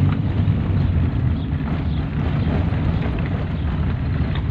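A car driving, heard from inside the cabin: a steady low rumble of engine and tyres on a dirt track.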